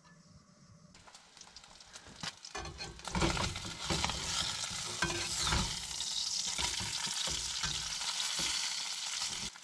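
Ground-beef burger patties sizzling and spattering in a hot frying pan. The hiss swells about a second in and is loudest from about three seconds on. A few knocks and scrapes come between about three and six seconds in.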